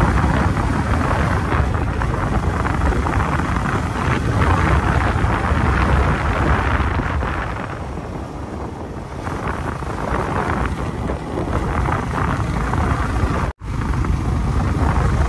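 Wind rushing over the microphone with the motorcycle's engine and road noise while riding, a dense steady roar. The sound drops out for a split second near the end.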